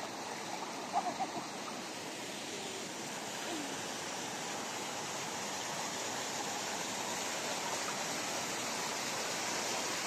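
Steady rush of a waterfall pouring into a rock pool, growing slightly louder in the second half.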